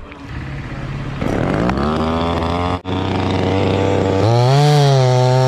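Chainsaw engine revving: its pitch rises about a second in and holds steady, then climbs higher a little after four seconds and stays at high revs.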